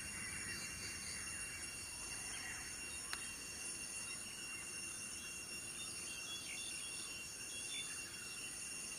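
Steady high-pitched drone of insects, several tones at once, with a few faint short chirps scattered through and a single click about three seconds in.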